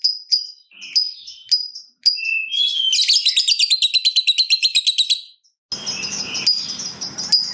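Lovebird calling: a few sharp, high single chirps spaced about half a second apart (the 'ticking' call), then a long, fast chattering trill lasting about two and a half seconds. After a short gap, a noisier passage with a steady high tone begins near the end.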